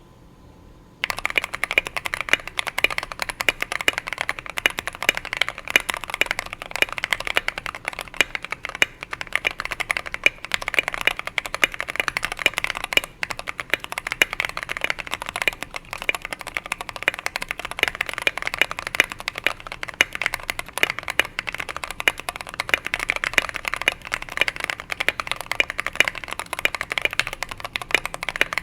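Fast, continuous typing on a GK61XS mechanical keyboard with lubed Gateron Brown switches, Durock V2 stabilisers, SA keycaps, plate foam and tape mod. The typing starts about a second in.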